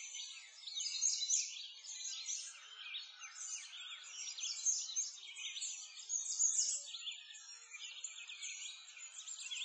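Many songbirds chirping at once, lots of short, quick calls overlapping.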